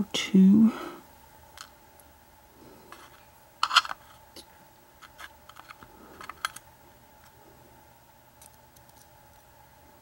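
Small, light clicks and ticks of metal tweezers picking steel lock pins out of a brass lock plug and setting them down in a pin tray. The sharpest clicks come about four seconds in, with a few lighter ones a little later.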